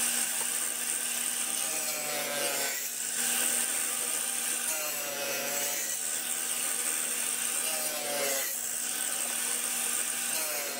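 Table saw running with its blade set low, making shallow test cuts in a scrap piece of wood to set the exact cut depth. The motor's pitch sags briefly under load about three times as the piece is pushed through.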